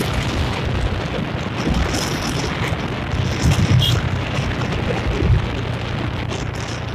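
Wind buffeting the microphone of a camera on a moving motorbike, a steady rushing rumble with gusts, over the low drone of the bike's engine.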